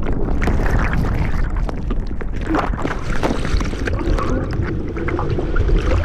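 Rushing, churning whitewater and heavy wind buffeting on a helmet-mounted camera's microphone as a kayak drops down a 101-foot waterfall and plunges into the water, with splashes.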